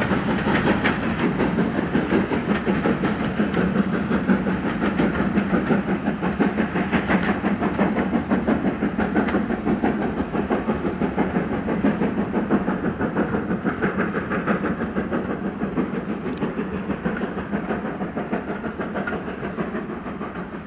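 Steam-hauled train running by, a dense, fast clatter with steam hiss that slowly fades toward the end.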